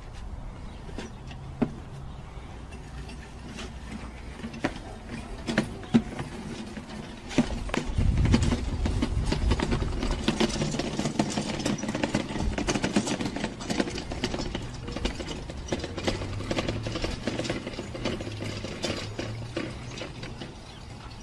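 Plastic garden cart rattling and clattering on dirt as goats climb on it and push it about, with scattered sharp knocks. The clatter gets louder and busier about eight seconds in.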